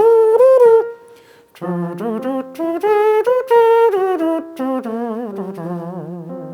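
A voice imitating a trumpet through pursed lips, singing quick, swung phrases of short notes that glide between pitches, with a short break about a second in.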